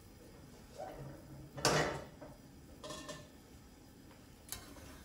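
A few knocks and clatters of metal kitchenware being handled, the loudest about two seconds in, with a short metallic ring about three seconds in and a light click near the end.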